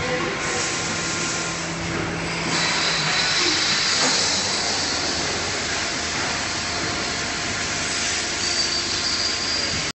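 Double-head machining center running: a steady hiss with a high, steady whine that comes in and grows louder about two and a half seconds in.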